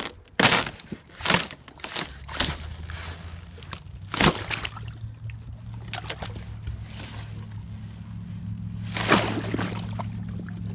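Thin sheet ice over shallow water being broken: a run of sharp cracks and crunches, several in the first half and a cluster about nine seconds in, with water sloshing between them. A low steady hum runs underneath.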